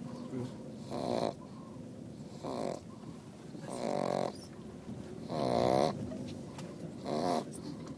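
Pug puppy snoring in her sleep: five snores about a second and a half apart, the fourth one the loudest.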